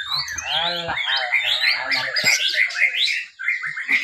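Several white-rumped shamas (murai batu) singing at once: overlapping whistles, chirps and rapid chattering trills, with a brief break near the end.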